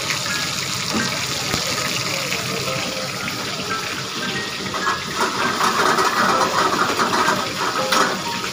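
Hot oil sizzling in a wok as batter-coated prawns are dropped in to deep-fry, the sizzle growing louder from about five seconds in.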